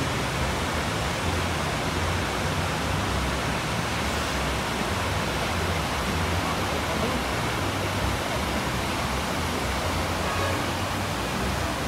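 Steady rushing of a fast, muddy river running over rocks and rapids, mixed with the sound of road traffic.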